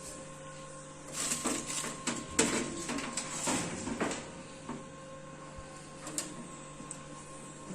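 Computer cables being handled and plugged into the back of a desktop computer tower: about three seconds of rustling, scraping and clicking starting about a second in, then a few single clicks, over a steady low hum.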